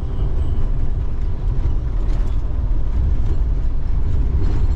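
Scania K410 double-decker bus driving at speed, heard from inside its cabin: a steady low rumble of engine and road noise, with a few faint rattles.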